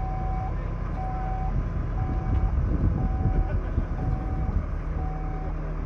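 A vehicle engine running steadily, with a single-pitched electronic beep repeating about once a second, each beep about half a second long.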